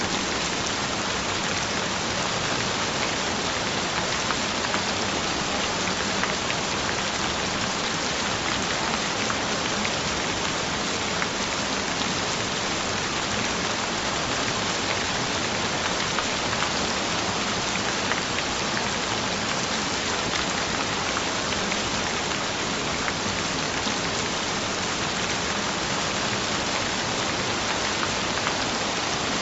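Gentle rain falling steadily: an even hiss of rain with fine scattered drop ticks, unchanging throughout.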